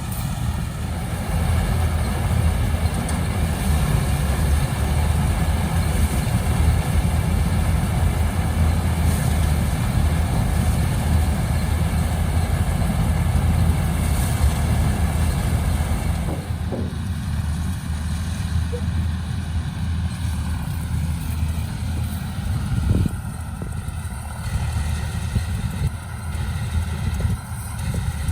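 Paddy harvester's engine running steadily with a deep, even rumble. About sixteen seconds in it eases slightly, and a few short knocks follow.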